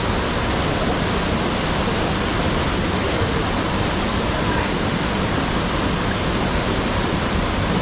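Waterfall pouring: a steady, even rush of falling water that does not change.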